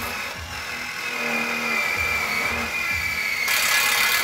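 Cordless drill driving a self-drilling screw into a metal cross brace: a steady high motor whine that grows louder and rougher in the last second as the screw cuts through the metal.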